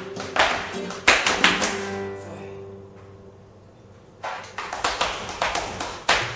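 Flamenco footwork: a dancer's shoes striking a wooden floor in sharp stamps, over a flamenco guitar's notes ringing out in the first two seconds. After a brief lull, a quick run of footwork strikes begins about four seconds in.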